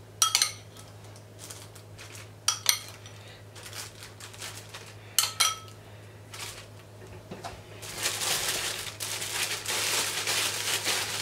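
A metal spoon clinks against a glass bowl in three short ringing groups of taps, about two and a half seconds apart, as thick marinade is spooned out. From about eight seconds in, a plastic food storage bag crinkles and rustles as it is handled.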